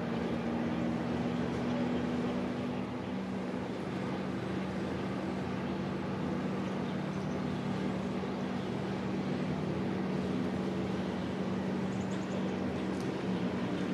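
Boat engine running steadily: a constant low drone with a steady hum.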